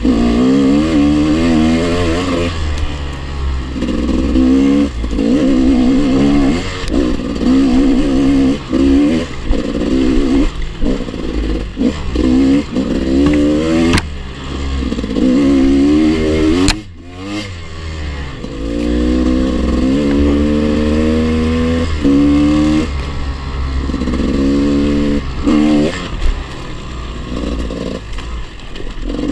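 Dirt bike engine being ridden off-road, its revs rising and falling over and over as the throttle is opened and shut. The engine briefly drops off about seventeen seconds in before picking up again.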